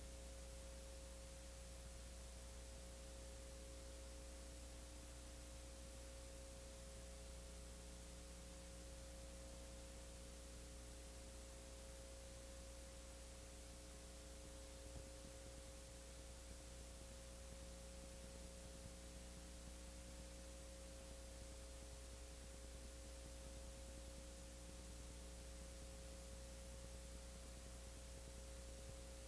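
Near silence: a steady electrical hum, with a faint constant high tone and hiss, the background noise of a silent home-movie transfer. Nothing from the lake scene is heard.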